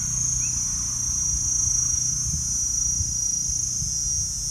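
A chorus of insects makes a steady, high-pitched drone, with a low irregular rumble underneath.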